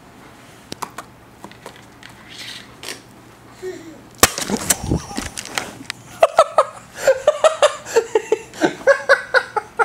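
A sharp knock as an Alaskan Malamute's snout bumps into the camera about four seconds in, with a brief rumble of handling after it. From about six seconds in, a person laughs in quick repeated bursts.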